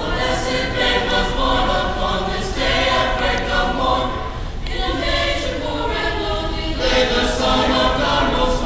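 Mixed-voice school choir singing, in phrases with brief breaks between them.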